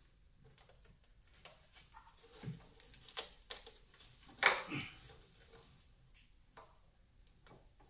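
Scattered clicks, knocks and rattles of hands working among an engine bay's wiring harness and plastic hold-down clips, with one sharp, louder knock about four and a half seconds in.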